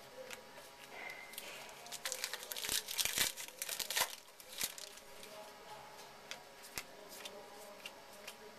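A pack of baseball cards being torn open by hand, the wrapper ripping and crinkling in a dense burst about two to four seconds in, with light clicks of cards being handled before and after.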